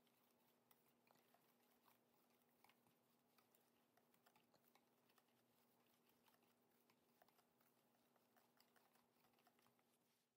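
Very faint, irregular light clicks and scraping of a spoon stirring dry seasoned flour in a stainless steel bowl, over a low steady hum.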